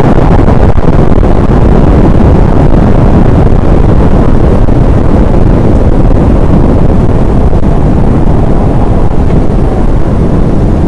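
Very loud, steady wind noise blowing hard across the microphone, from the winds of a tornado's core.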